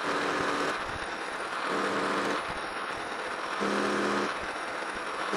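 Metal lathe turning a square aluminum blank round under power feed, taking an interrupted cut as the tool catches the corners. A steady hiss of cutting, with a low hum that swells in briefly about every two seconds.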